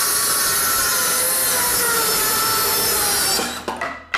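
Circular saw cutting through plywood, a steady loud cut with a whine from the spinning blade. A little over three seconds in the blade breaks through and the saw winds down, with a few knocks as the cut-off end drops to the floor.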